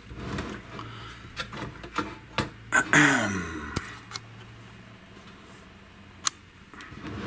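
Scattered light clicks and knocks as a guitar amp's circuit board and its input jacks are handled and tilted inside the open sheet-metal chassis, with one sharp click near the end.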